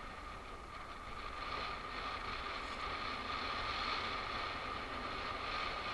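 A steady mechanical whine holding one high pitch, over a background hiss.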